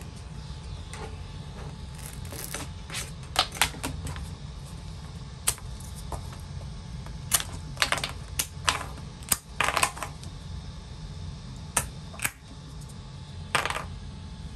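3D-printed plastic cubes clacking and knocking as they are popped off a flexed magnetic build sheet and tumble onto the printer bed, a dozen or so sharp, irregular clicks. A steady low hum runs underneath.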